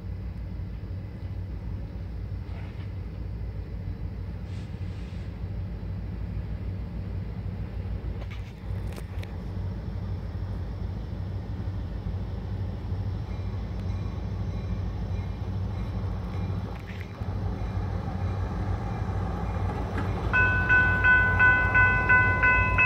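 Approaching freight train's diesel locomotive, a steady low rumble that slowly grows louder. About twenty seconds in, a railroad grade-crossing warning bell starts ringing.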